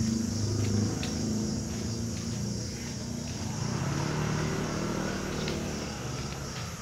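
A small engine running steadily close by, its low hum drifting slightly in pitch, with a few faint ticks over it.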